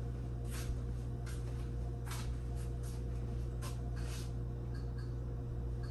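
A steady low hum with a faint higher tone, and a few faint, irregular rustles and clicks over it.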